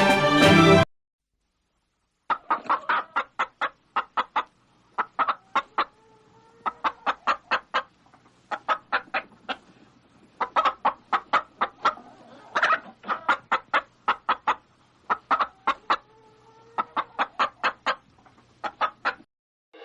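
Hen clucking: runs of quick, short clucks in bursts of several at a time, broken by short pauses, with a few longer drawn-out notes between runs. Background music cuts off just before the clucking begins.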